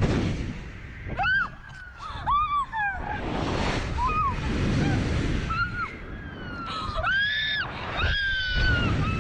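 Several short, high-pitched human screams and shrieks, one after another, over a steady rushing noise.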